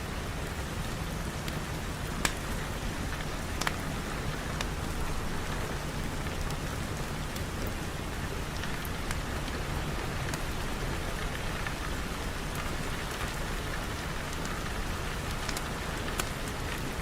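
Steady rain falling, an even wash of noise, with a few sharp single ticks on top, the clearest about two seconds in.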